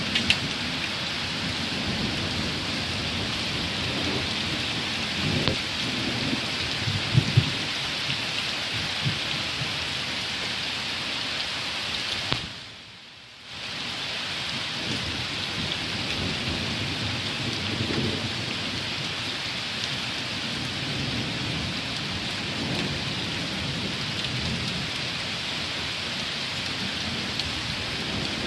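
Heavy thunderstorm rain with a steady, dense hiss. Thunder rumbles low several times in the first third and again a few seconds past halfway. The sound briefly drops away about halfway through.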